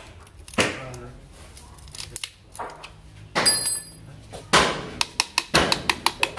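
Metal clanks and knocks as a piston in a piston ring compressor is set into a cylinder of an Isuzu Panther diesel engine block, with a brief ringing clang from the compressor about halfway through. Quick taps near the end as the piston starts to be tapped down into the bore with a hammer handle.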